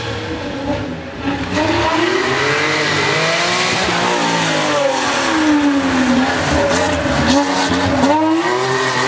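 Classic Porsche 911's air-cooled flat-six engine driven hard on a rally stage, its revs rising, then falling as the car slows for a corner, then rising again as it accelerates away.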